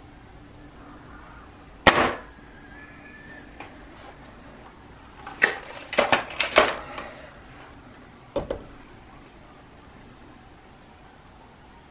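A .22 Gamo Swarm Fusion 10X Gen 2 break-barrel air rifle fires once, a single sharp crack about two seconds in. A quick run of sharp metallic clicks and clacks follows around six seconds as the rifle is cocked again, then a double clack about eight and a half seconds in.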